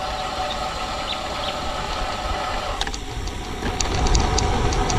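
An engine running steadily with a humming tone. About three seconds in the hum thins out, then scattered light ticks and a low rumble come in.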